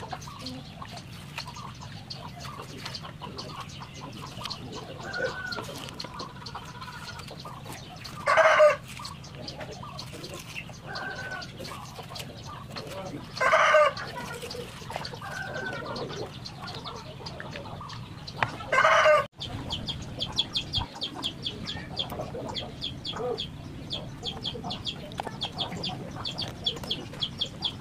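A rooster crows three times, several seconds apart, over hens clucking now and then. After about twenty seconds a fast, high chirring starts up.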